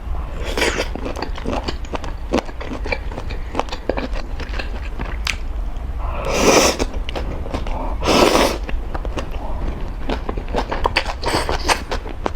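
Spicy instant noodles being eaten close to the microphone: a constant run of small wet chewing and smacking clicks. Two louder noisy slurps come about six and eight seconds in.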